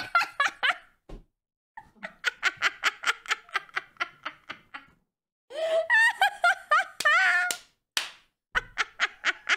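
A woman laughing hard in several bouts of rapid, breathy pulses. There is a higher, wavering stretch about six seconds in, and more quick pulses near the end.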